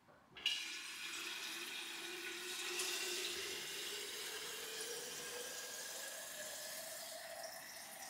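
Water running from a tap into a container. It starts about half a second in, and its pitch slowly rises as the vessel fills.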